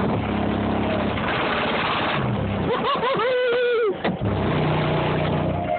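Car audio system with two 18-inch subwoofers playing bass-heavy music loud. Deep bass notes are held a second or so each and step in pitch. A short, wavering higher-pitched line in the music cuts in about three seconds in.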